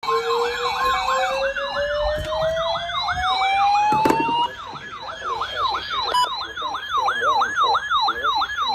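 Electronic emergency siren sounding a fast yelp, about three sweeps a second, with a second siren tone rising steadily in a slow wail over the first four and a half seconds. It starts suddenly and cuts off abruptly.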